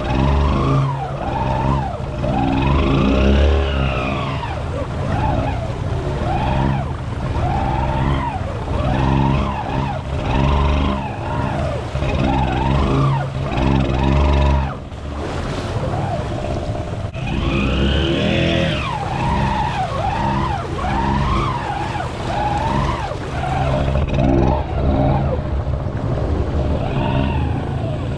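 ATV engine revving up and down over and over while it pushes through deep muddy water, the pitch rising and falling about once a second.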